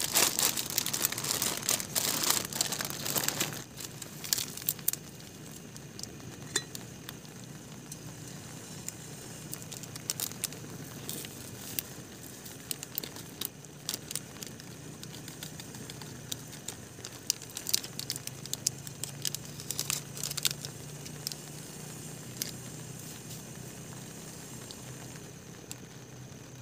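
A plastic instant-coffee sachet crinkling as it is handled and torn open for the first three or four seconds, then softer scattered clicks and taps over a steady hiss of rain.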